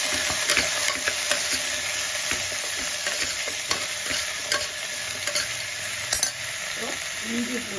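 Raw mutton and whole shallots sizzling in hot oil in a pressure cooker, searing just after going in, as a perforated metal ladle stirs them with irregular scrapes and clicks against the pot.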